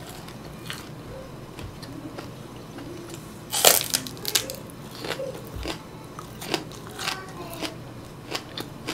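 Raw Korean green onion (daepa) stalk bitten into with one loud, crisp crunch about three and a half seconds in, then chewed with a run of smaller crunches. Quieter chewing and mouth sounds come before the bite.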